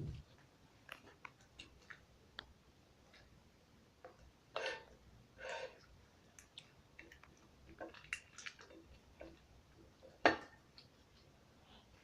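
Clear slime being squeezed and poked by hand: scattered small wet clicks and pops, with a few longer squelches, the loudest about ten seconds in.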